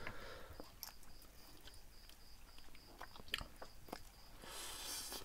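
Two people chewing and slurping spicy instant noodles, with scattered small wet mouth clicks and a short slurp about four and a half seconds in.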